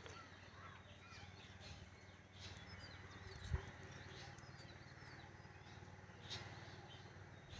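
Quiet outdoor morning air with faint, scattered birds chirping. A single soft low thump about three and a half seconds in.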